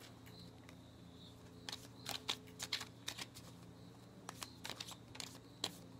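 Tarot cards handled and shuffled by hand: scattered soft clicks and flicks of card on card, starting about two seconds in and coming in small clusters.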